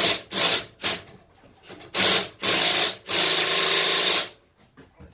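Power driver running a nut-driver socket, spinning a bolt out of a riding mower's transaxle. It goes in a string of short bursts, then one longer run of over a second.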